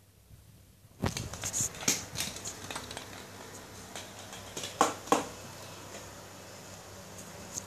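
A kitten batting a plastic toy about on a tiled floor: scattered light clicks and knocks after a quiet first second, the loudest a close pair about five seconds in.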